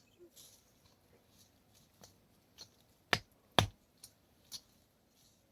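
A few sharp clicks and knocks at irregular intervals, the two loudest close together about three seconds in.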